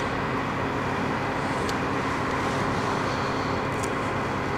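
A fan running with a steady mechanical hum, with two faint sharp ticks, one a little under two seconds in and one near the end.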